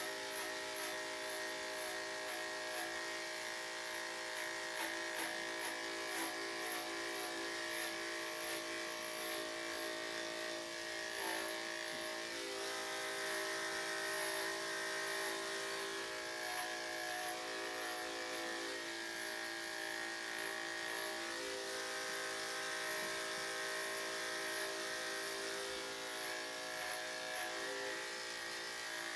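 Electric dog grooming clippers fitted with a #5 blade, running with a steady motor hum as they clip a Yorkshire Terrier's coat.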